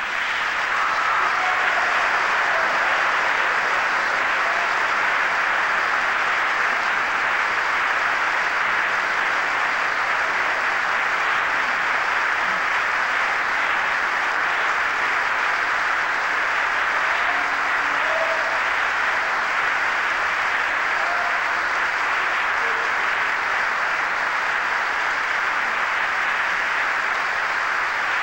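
Opera house audience applauding steadily, a sustained ovation at an even level.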